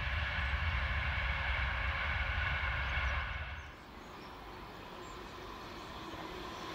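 Express passenger train running along the line at speed, a steady rush of wheel and running noise with a deep rumble, which cuts off abruptly about three and a half seconds in. After that comes a quieter, steady railway sound that slowly grows louder as the next train approaches the junction.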